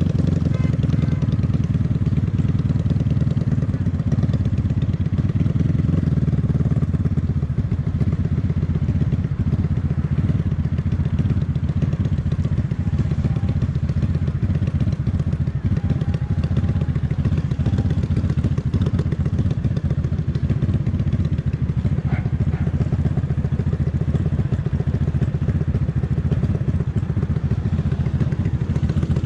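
Honda Magna VF750's V4 engine running steadily, with a continuous low, even pulsing exhaust note.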